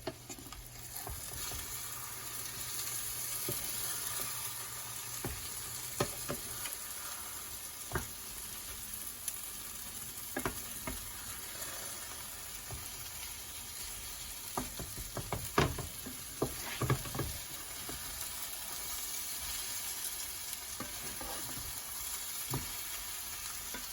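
Beaten eggs with shrimp and tomato frying in oil in a pan, a steady sizzle over low heat. A few scattered clicks and taps break through it.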